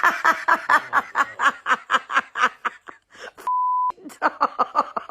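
Rapid, rhythmic laughter, about five bursts a second, broken about three and a half seconds in by a half-second steady censor beep, after which the laughter goes on.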